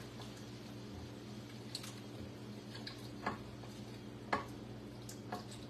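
A spoon stirring a wet mixture in a frying pan, soft squishing with a few light clicks of the spoon against the pan, over a steady low hum.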